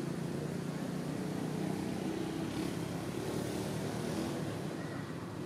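A steady, low engine rumble with a faint hum.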